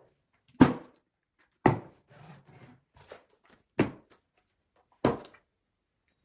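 Partly filled plastic bottles knocking down onto a wooden tabletop and a hardcover book as they are stacked. There are four sharp knocks a second or two apart, with faint handling clicks between them.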